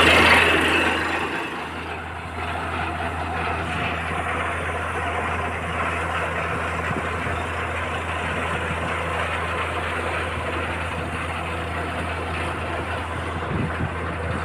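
Truck-mounted borewell drilling rig running steadily, its engine and compressor giving a low, even hum. A loud rushing hiss at the start dies away within the first two seconds.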